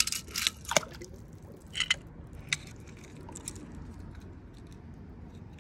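Die-cast toy cars being handled and set down on stone, giving a few short clicks and scrapes in the first three seconds, then only a faint steady hiss.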